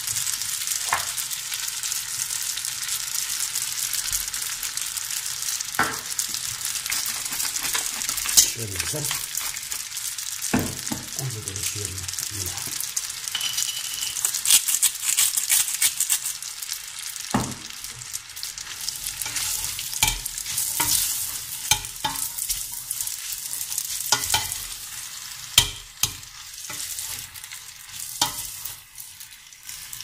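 Spaghetti sizzling in melted butter and sauce in a stainless steel pot: a steady frying hiss, broken by occasional sharp clicks and knocks.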